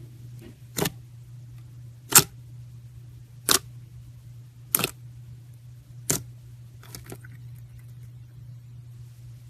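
Five sharp clicks at an even pace, about one every second and a half, then two fainter ones, over a steady low hum.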